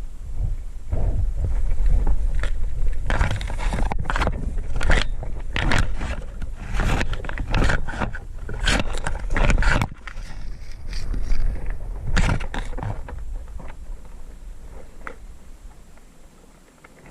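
Irregular scraping, crunching and rustling of someone moving through brush and undergrowth, over a steady low rumble on the microphone. It eases off over the last few seconds.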